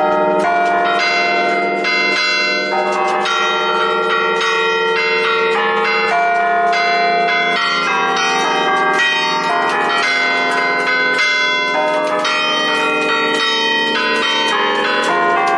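Six bronze church bells cast by De Poli in 1910, a ring in B-flat, rung for a feast: quick strikes of several bells follow one another in a festive pattern, their ringing overlapping without a break.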